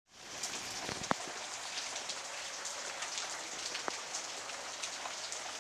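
Steady rain falling, a dense hiss of small drops with two sharper single drips, about a second in and near four seconds in.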